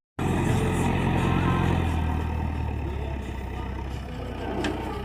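Backhoe loader's diesel engine running steadily after a brief dropout at the start. The engine note drops lower about two seconds in and the sound eases off, picking up slightly near the end.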